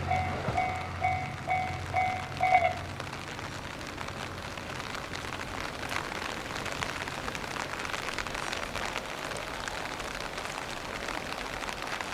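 Level-crossing warning bell ringing about twice a second over the fading rumble of a just-passed train, both stopping about two and a half seconds in. After that, steady rain patters on an umbrella.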